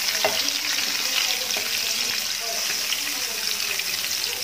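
Steady sizzle of peeled hard-boiled eggs frying in hot oil in a nonstick pan, with a wooden spatula nudging them now and then.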